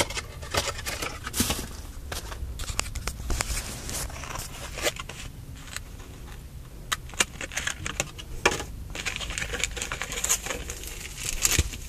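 A rigid clear plastic blister pack of a Yu-Gi-Oh Special Edition being handled and pried open by hand. It makes irregular crinkling and crackling with sharp clicks and snaps, over a low steady rumble.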